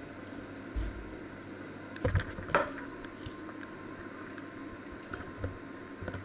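Handling noises in a kitchen: a few scattered light knocks and clicks over a steady low room hum, loudest as a quick cluster about two seconds in.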